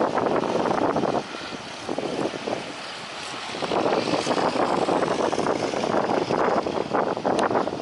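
Propeller aircraft engine running outdoors, its sound swelling and fading unevenly, with wind buffeting the microphone. The sound dips a little before two seconds and grows louder again from about halfway through.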